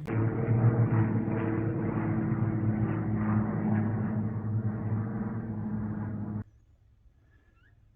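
A steady, low, engine-like mechanical drone that cuts off suddenly about six and a half seconds in, followed by near silence with a few faint short chirps.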